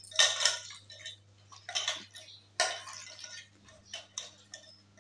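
A hand mashing raw chicken blood in an aluminium pot, breaking up the lumps: a few short scrapes and clinks against the metal pot.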